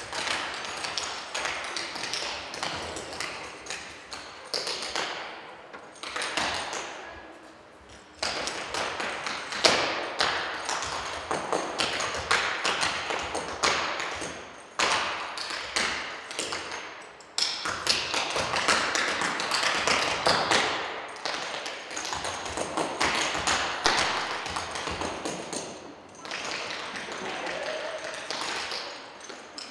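Percussive dance shoes striking a wooden stage floor: fast runs of sharp taps and stamps in rhythmic phrases, broken by brief pauses, with a short lull about a quarter of the way in.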